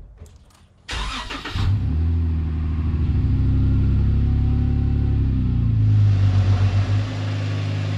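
Jeep Wrangler JKU's V6 engine cranked by the starter about a second in, catching and settling into a steady idle that briefly swells around six seconds.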